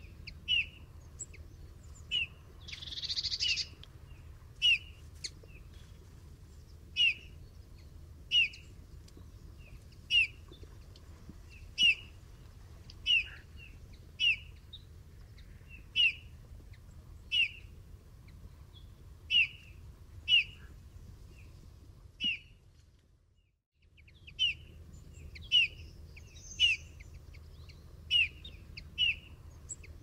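Eurasian bullfinch calling: short, clear notes repeated about once every second or so, with a pause of about a second near the last quarter.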